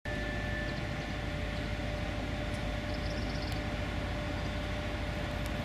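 Steady low rumble of railway station background noise with a faint steady hum. A few faint high chirps come about three seconds in.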